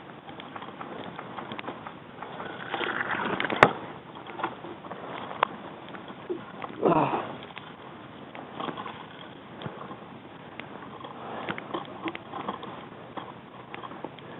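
Rustling and scattered small clicks and knocks of a player moving on foot, with one sharp crack about three and a half seconds in and a short breathy sound around seven seconds.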